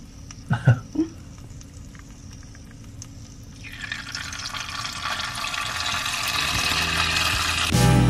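Churro dough frying in hot oil in a frying pan: the oil starts to sizzle about three and a half seconds in as the dough is piped in, and the sizzle grows steadily louder. Background music comes in near the end.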